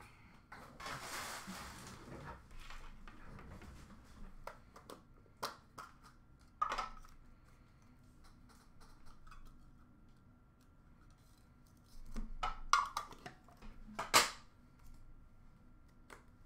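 Handling noise from opened card packaging: a short rustle of cardboard and wrappers, then scattered sharp clicks and clatter from hard plastic card cases being picked up and set down, the loudest click near the end.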